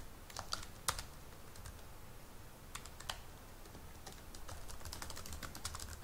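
Computer keyboard typing: a few short runs of key clicks with pauses between.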